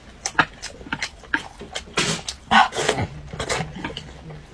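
A person slurping and chewing noodles at close range, with wet mouth clicks and smacks and short noisy slurps; the loudest slurp comes about two and a half seconds in.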